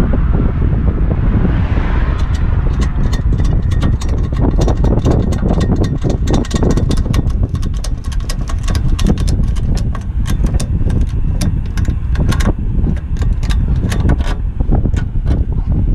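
Road noise under a C6500 box truck being towed: a loud, dense low rumble of tyres and wind, with frequent sharp clicks and rattles throughout. The truck's own engine is not running, because its driveshaft has been pulled for the tow.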